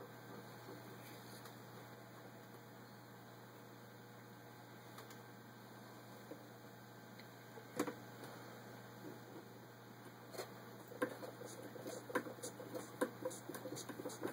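A steady low electrical hum with a few isolated light clicks. About ten seconds in, an antique Willcox & Gibbs chain-stitch sewing machine, turned by hand at its handwheel, starts clicking quickly and unevenly.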